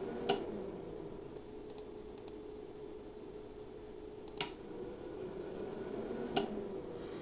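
A handful of sharp, widely spaced computer clicks, such as a mouse or keys used to start a test in a program, with the loudest about four seconds in. A faint steady hum runs underneath.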